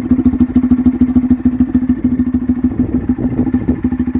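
Honda Titan motorcycle's single-cylinder engine idling steadily and loudly through a homemade PVC-pipe exhaust, with a rapid, even exhaust pulse.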